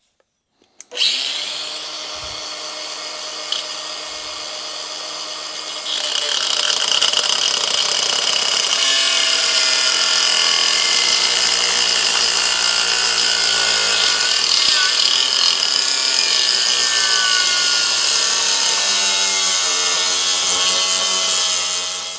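Angle grinder with a thin cutting disc starting up about a second in and spinning free, then from about six seconds cutting a slot into a small metal lug clamped in a vise. The cut is a loud, steady grinding screech that stops abruptly at the end.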